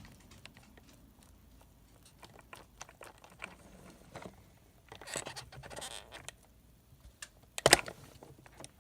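Scattered light clicks and scrapes, with a short flurry about five seconds in and a louder sharp click near the end.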